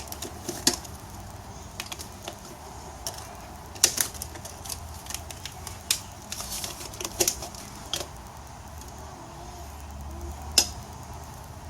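Tire irons clicking and clanking against a motorcycle wheel rim as the second bead of a new tire is levered on by hand: irregular sharp clicks, a few louder knocks about four, six and eight seconds in, and one near the end.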